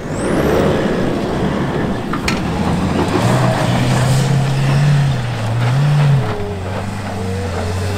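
Isuzu D-Max V-Cross pickup's four-cylinder diesel engine revving hard under load on a steep dirt climb, with the tyres spinning in loose dirt. The engine note climbs about three seconds in, holds for a few seconds, then drops back to a lower steady note about six seconds in.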